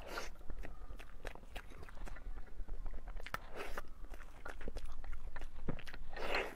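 Close-miked eating of soft mousse cake from a spoon: many small wet mouth clicks and smacks while chewing, with three louder noisy bursts, one at the start, one about three and a half seconds in, and one near the end.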